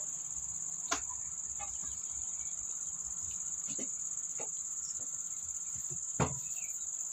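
Crickets chirping as a steady high-pitched drone, with a couple of sharp knocks, about a second in and near the end, from a hand mixing wheat-flour and jaggery batter in a steel bowl.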